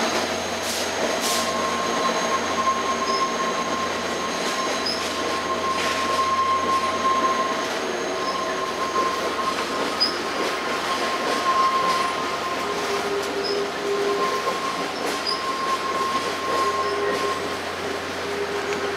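Via Rail Renaissance passenger cars rolling through a curve. Their wheels squeal against the rails in held high tones that fade in and out over the steady rumble of the train, with a few sharp clicks.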